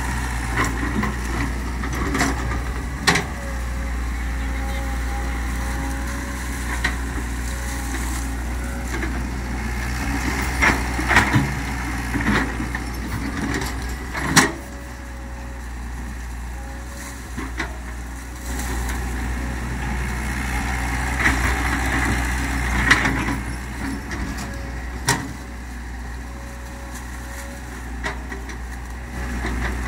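Komatsu PC130 hydraulic excavator's diesel engine running steadily while it works, with a wavering whine that comes and goes. Several sharp knocks, the loudest about fourteen seconds in.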